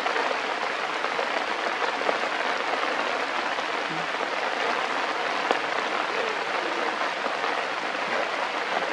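Steady patter of rain on forest foliage, an even hiss with an occasional sharper tick.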